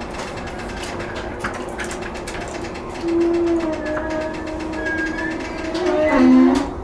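Yamanote Line electric train running on the rails: a steady whine of several tones with faint rail clicks. The whine swells louder twice, about three seconds in and again near the end, where its pitch drops and it cuts off.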